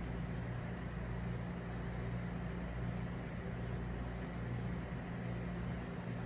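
Steady low machine hum with a light hiss.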